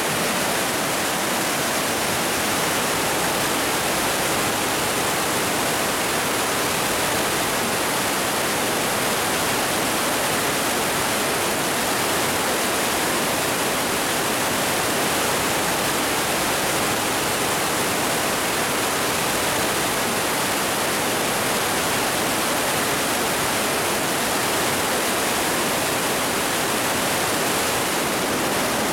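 The Partnach river in spate after a rainstorm, white water rushing through a narrow rock gorge: a steady, even rush of water.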